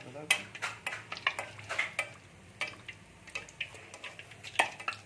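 Nan puri deep-frying in hot oil in a metal kadai: irregular sharp crackles and sizzling as a perforated metal ladle spoons hot oil over the puffing dough, with light clicks of the ladle against the pan.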